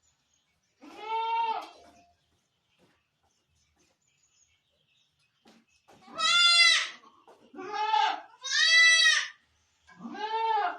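Barbari goat bleating five times, each bleat about a second long and arching up then down in pitch: one about a second in, then after a pause a run of three close together, and a last one near the end.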